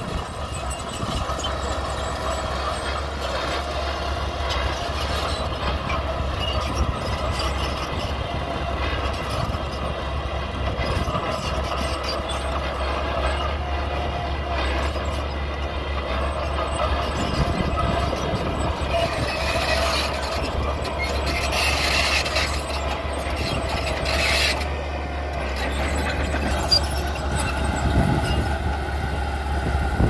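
Mini bulldozer working: its engine runs steadily under the metallic clatter of the steel crawler tracks, which grows harsher for a few seconds about two-thirds of the way in.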